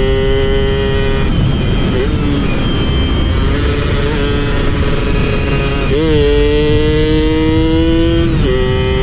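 Two-stroke motorcycle engine running on the road with a steady buzzing note that turns ragged and unsteady for a few seconds. About six seconds in the pitch shifts suddenly and slowly sinks, then it settles back to the first steady note near the end.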